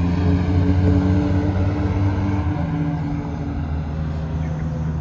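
Fire engine's diesel engine running with a steady low drone as the truck drives away, growing fainter in the second half.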